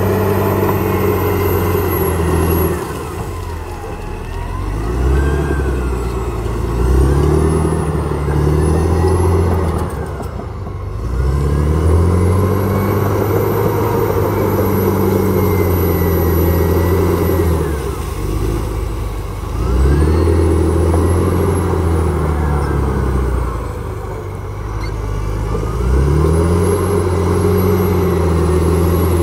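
CAT D7R crawler bulldozer's diesel engine working under load as the blade pushes into earth and brush. The revs rise and fall in cycles of several seconds, dipping briefly between pushes, with a high whine that rises and falls along with them.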